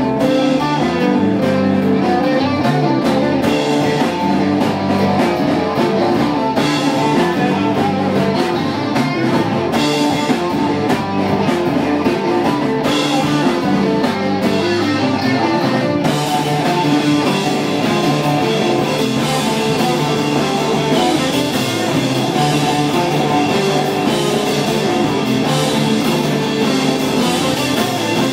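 Live rock band playing: electric guitars, electric bass and drum kit. About halfway through, the playing turns brighter and busier in the high end.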